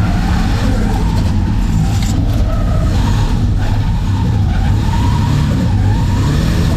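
Turbocharged 3.8-litre Ecotec V6 of a Holden VS Commodore being driven hard in a drift, its revs rising and falling repeatedly, with tyres skidding.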